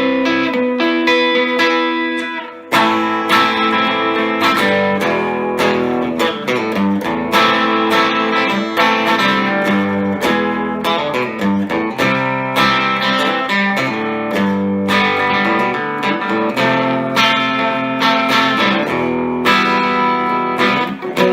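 Epiphone Casino hollow-body electric guitar played through a Vox AC15C1X valve amp on its Top Boost channel: a run of picked notes and chords, with a brief break about two and a half seconds in.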